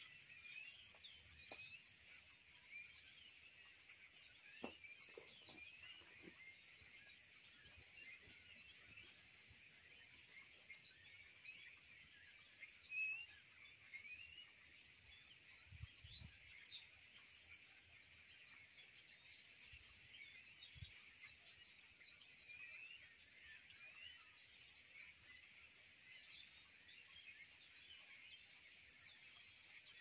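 Faint chorus of birds chirping steadily, many short quick notes overlapping, with a few soft low thumps.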